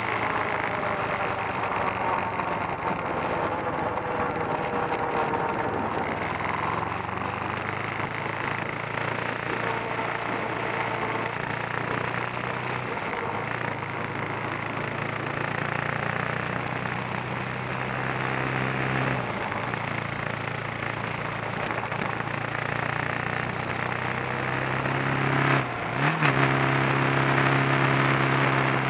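Kawasaki 454 LTD's parallel-twin engine running under way over a rush of wind and road noise. Its pitch falls slowly over the first few seconds, and about 26 seconds in the engine note breaks briefly and then comes back louder.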